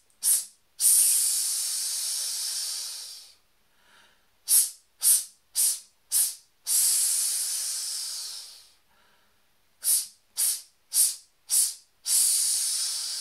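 A man hissing through his teeth as a singer's breath-support exercise: sets of four short, sharp hisses, each set ending in one long hiss of two to three seconds, three sets in all. Each hiss is pushed out by the side abdominal muscles, which are kept switched on through the long hiss.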